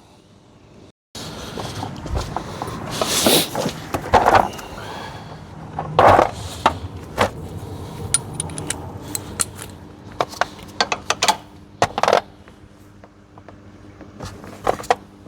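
Metal tools clinking, knocking and scraping, with a few louder knocks and a run of quick clicks, while a car seat is being unbolted to remove it.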